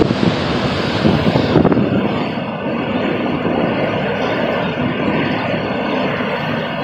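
Hurricane eyewall wind with driving rain, a loud continuous roar. About a second and a half in, the hiss of it drops away and it becomes duller.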